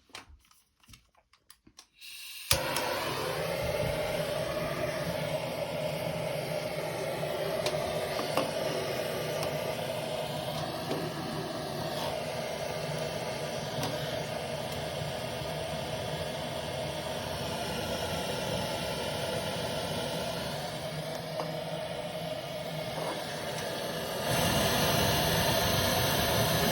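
Gas-canister torch burner lit to kindle a fireplace, starting suddenly about two and a half seconds in and then hissing steadily; it gets louder near the end.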